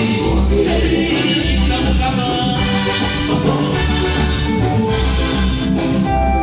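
A band playing an upbeat dance tune with a strong, pulsing bass line, loud and steady.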